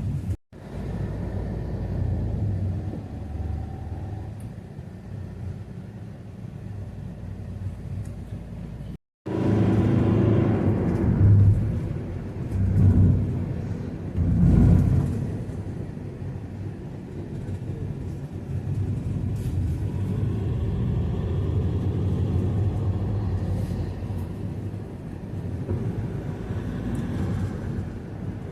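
Low rumble of a road vehicle running, with louder swells around the middle. The sound cuts out completely for a moment twice.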